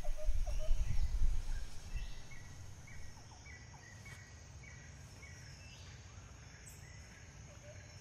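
Woodland ambience: short chirps repeated every half second or so over a steady high-pitched hum, with a low rumble over the first two seconds that fades away.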